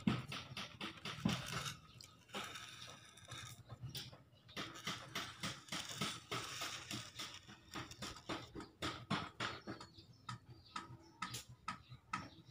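Rapid, irregular small clicks and taps, several a second.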